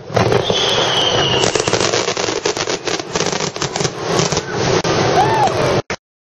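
Aerial fireworks bursting, a dense run of rapid crackling bangs from glitter shells, with a high falling whistle about half a second in. The sound stops abruptly about six seconds in.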